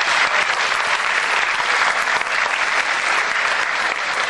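Theatre audience applauding steadily, a dense clatter of many hands clapping.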